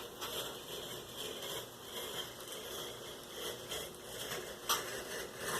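Cardboard being handled and worked by hand: continuous rustling and scraping with small ticks, and one sharp tap near the end.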